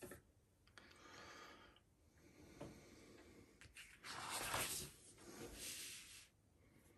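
Soft paper rustling as a glossy brochure's pages are handled on a table, with the loudest rustle, as the brochure is closed, about four seconds in and another shortly after.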